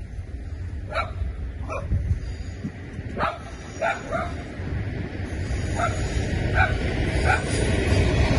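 A dog barking in short yaps, about eight times spread through, while the low rumble of an approaching SSR rail train grows steadily louder underneath.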